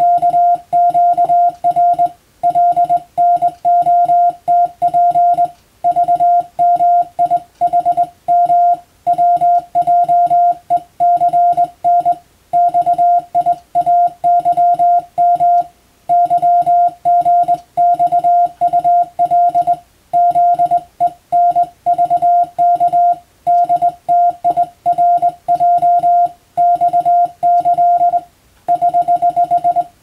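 Morse code sidetone keyed by hand on a telegraph key: a single steady tone switching on and off in dots and dashes, sent as random five-letter code groups with short pauses between groups. Near the end a quick run of eight dots, the error sign, precedes the resent group.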